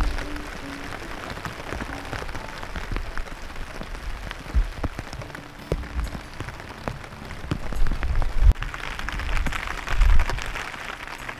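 Steady rain falling, with many separate heavy drops striking close by; the loudest hits come around eight and ten seconds in.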